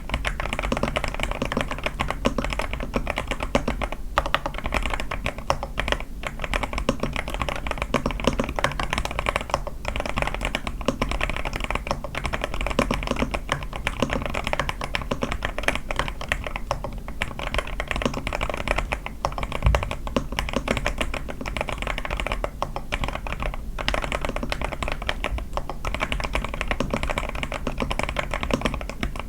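A81 mechanical keyboard with lubed Sky switches, tape mod and lubed stabilizers being typed on continuously: a steady, irregular run of key presses and clicks.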